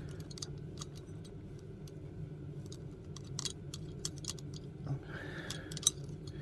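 Scattered small clicks and taps of a screwdriver and metal parts as the steering wheel's screws and horn parts are worked loose, over a steady low hum.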